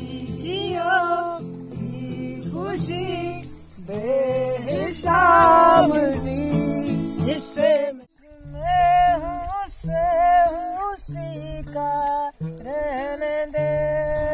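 Acoustic guitar strummed in chords under men singing a melodic, ornamented vocal line. The sound drops out abruptly for a moment about eight seconds in, then guitar and singing carry on.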